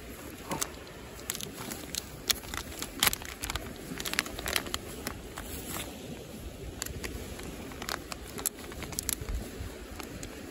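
Berkley Gulp! Isome plastic bait bag crinkling and its resealable zip being worked open in gloved hands: a run of irregular crackles and clicks over a steady low background rumble.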